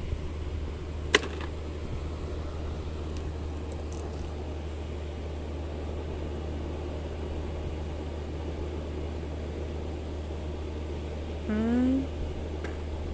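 Steady low mechanical hum, with a single sharp click about a second in and a brief rising pitched call near the end.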